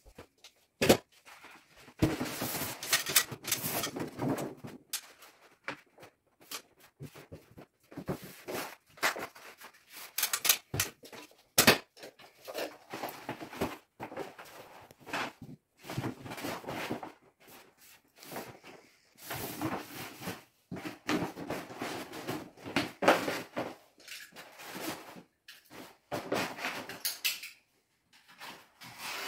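Rustling and crinkling of a pasted non-woven wallpaper strip as it is unrolled and pressed by hand onto the wall, in irregular stretches, with scattered clicks and knocks of handling.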